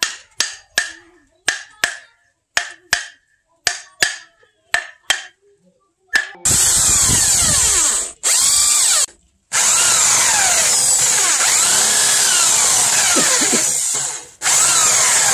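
Sharp knocks, mostly in pairs about a second apart, each with a short ring, as a wooden rod strikes a grip handle. Then, from about six and a half seconds in, an electric drill bores loudly and steadily down into the handle clamped in a vise, stopping briefly twice.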